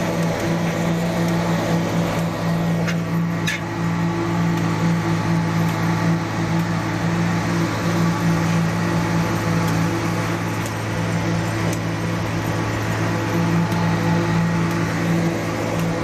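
Concrete paving machine running steadily close by: a loud, even mechanical drone with a constant low hum.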